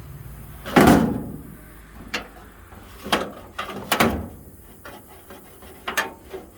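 Metal toolbox drawer being slid into its slides, scraping with a handful of sharp clunks, the loudest about a second in.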